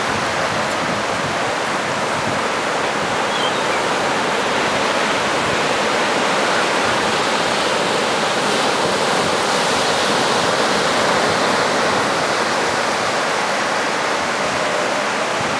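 Steady rushing sea noise, continuous and even, with no separate wave breaks standing out.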